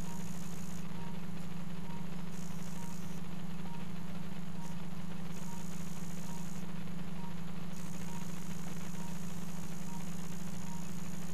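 Steady low electrical hum from operating-room equipment, with faint short electronic beeps evenly spaced about two a second.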